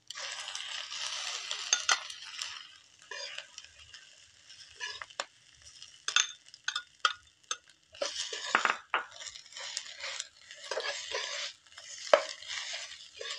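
Egg white poured onto hot, crisp-fried rice sizzles in the frying pan for a couple of seconds. Then a metal spatula scrapes and clinks against the pan as the rice is stirred, with further bursts of sizzling.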